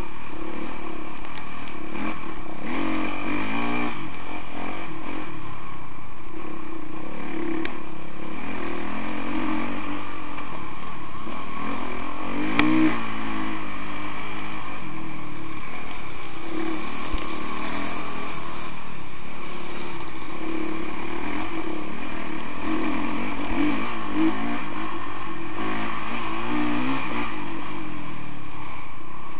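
Honda CRF 450R dirt bike's single-cylinder four-stroke engine being ridden, its revs rising and falling continually with the throttle. Two sharp knocks cut through, one about halfway and another a few seconds later.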